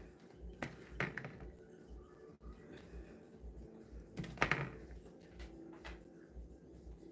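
A serving spoon scooping cooked penne out of a plastic colander and dropping it into a pot, with a few soft knocks and clatters of spoon against pot and colander, the loudest about four and a half seconds in.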